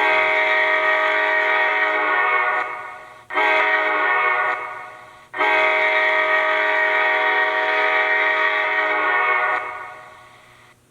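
Recording of a Nathan K5LA five-chime locomotive air horn, played by a LokSound sound decoder through an HO-scale model locomotive's small speaker. It sounds a long blast, a short blast, then a long blast, each fading out.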